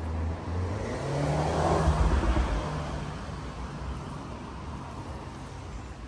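A motor vehicle passing by, swelling to its loudest about two seconds in and then fading, over a steady low rumble of distant traffic.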